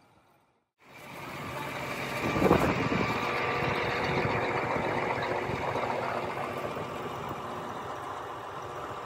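Large engine running steadily, cutting in after a brief silence about a second in.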